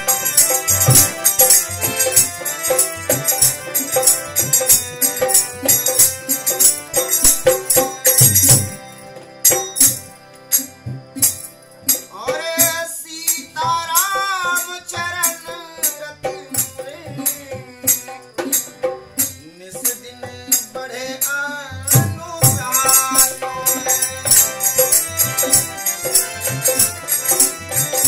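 Bhajan played on harmonium, dholak and jhanj hand cymbals. For the first eight seconds the jhanj rings on every beat over the dholak's strokes. The drums and cymbals then drop away, leaving the harmonium and a solo singing voice with wavering pitch. The full percussion comes back about twenty-two seconds in.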